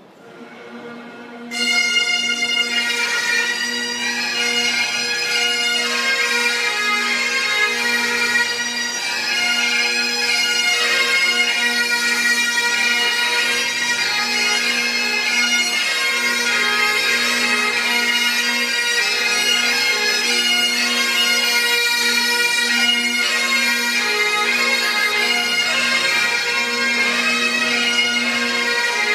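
Several Great Highland bagpipes playing a tune together over their steady drones; the pipes strike in about a second and a half in.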